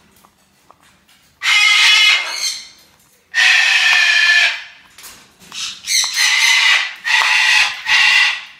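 A parrot screeching loudly: five harsh calls, each about a second long, the second one the longest and the last three coming close together.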